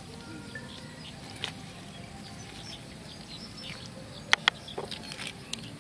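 Snake skin being peeled off the body by hand, with soft sticky crackles and scattered sharp clicks; the two loudest clicks come close together about four and a half seconds in.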